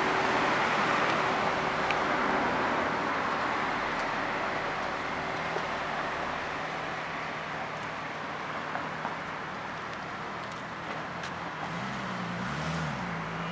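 A Ford Mustang's engine running as the car pulls out and drives off along the street, with engine and road noise slowly fading. Near the end a low engine note rises and falls briefly.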